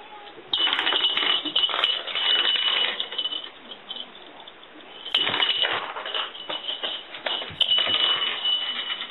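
Small jingle bell (suzu) jingling in three long bursts, ringing brightly with each shake.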